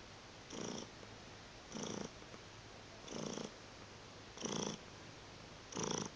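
Siberian cat purring, swelling in short louder surges about every second and a half with its breathing.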